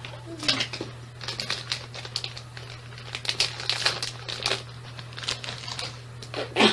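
A plastic snack wrapper being handled and crinkled by hand, an irregular run of quick crackles.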